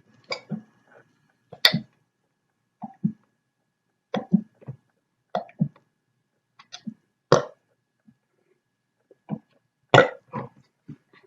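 A person hiccuping over and over, with short burps mixed in: a dozen or so brief, sudden sounds, some coming in quick pairs.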